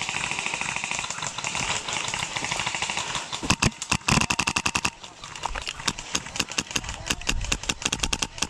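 Airsoft guns firing in rapid full-auto bursts, a fast clatter of shots. There are a couple of louder knocks about three and a half and four seconds in.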